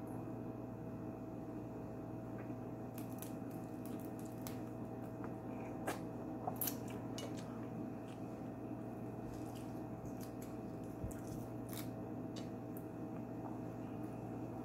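Eating and peeling boiled shrimp by hand: scattered small clicks of shell cracking and soft wet squishing as the meat is pulled and chewed, over a steady low hum.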